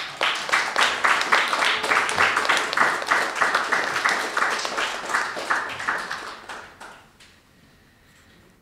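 Audience applauding: many hands clapping, thinning out and dying away about seven seconds in.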